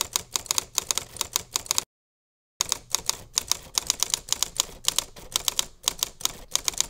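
Typewriter keystroke sound effect: rapid clicking keystrokes, several a second, timed to text typing onto the screen. It stops for under a second about two seconds in, then resumes.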